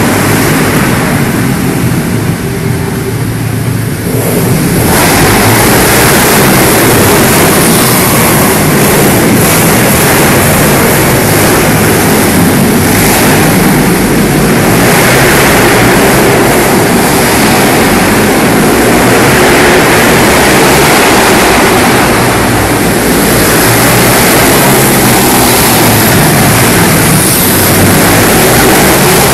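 Several pit bike engines running hard and revving as the bikes lap, loud throughout and louder from about five seconds in, echoing in an indoor hall.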